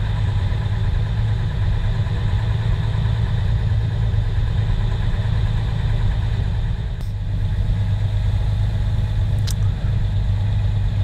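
Praga V3S military truck's air-cooled Tatra diesel engine running steadily at low revs as the truck drives slowly along a dirt trail, heard from inside the cab.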